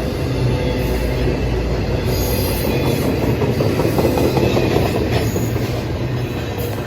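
Intermodal freight train rolling past, its railcars' wheels rumbling and clacking over the rail joints, with brief metallic wheel squeals now and then.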